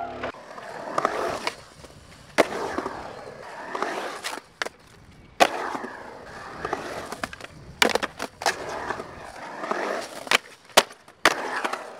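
Skateboard urethane wheels rolling on smooth concrete, the rolling noise swelling and fading as the board carves, broken by about ten sharp clacks of the board popping and landing, several close together about eight seconds in.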